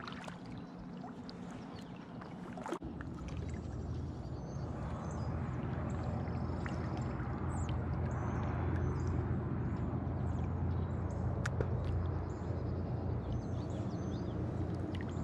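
Water sloshing and gurgling around a kayak as it is paddled across the water, under a steady low rumble that starts about three seconds in and builds, with a few light knocks.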